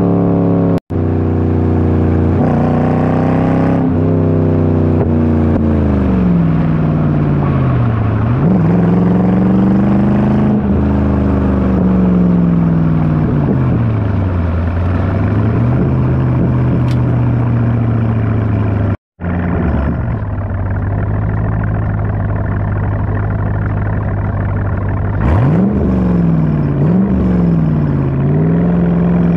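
Chevrolet C5 Corvette's 5.7-litre LS1 V8 through a MagnaFlow exhaust, heard at the tailpipes: the engine note climbs and falls repeatedly as the car accelerates and eases off on the road. After a short break at about 19 seconds it idles steadily, then is blipped in quick revs several times near the end.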